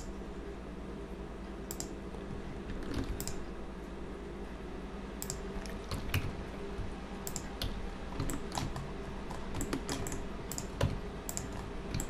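Computer keyboard keystrokes and mouse clicks, irregular, single and in quick pairs, as Blender shortcuts are pressed. A steady low electrical hum runs underneath.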